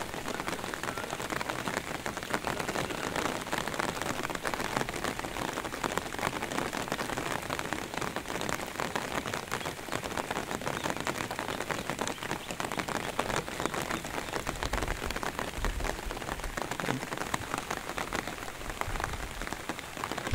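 Steady rain, a dense patter of drops falling on the river. A few low rumbles come in over the last several seconds.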